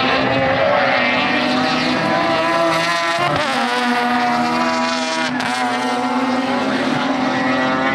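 Mazda RX-7 race cars' 13B rotary engines running at high revs as they pass, the pitch dipping and climbing again about three seconds in, with a short sharp crack about five seconds in.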